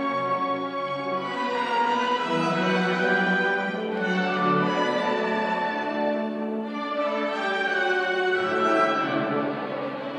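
School orchestra playing a classical piece, with sustained notes from many instruments at once; the playing eases off a little near the end.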